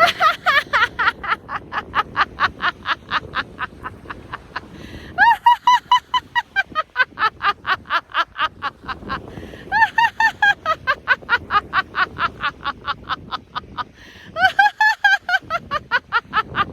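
A woman laughing deliberately in long, rapid ha-ha-ha bouts, about four or five pulses a second; each bout starts high and loud and trails off, with a quick breath before the next, four bouts in all. It is a self-started laugh of the fake-laughing kind, used as an exercise to lift the mood.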